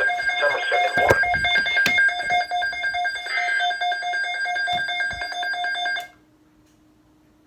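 Electronic alert tone from a Midland WR-300 weather alert radio: several steady pitches sounding together in a rapid pulse, with a couple of sharp clicks about one and two seconds in. It cuts off abruptly about six seconds in, leaving only a faint low hum.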